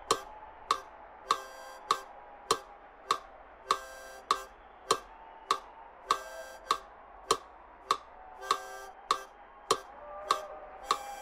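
Steady ticking, about five ticks every three seconds, with a few longer, buzzier ticks among them and a faint wavering tone underneath.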